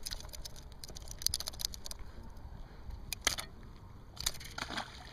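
Small clicks and rattles of hands handling fishing tackle while a hook is worked free of a fish, coming in three short clusters.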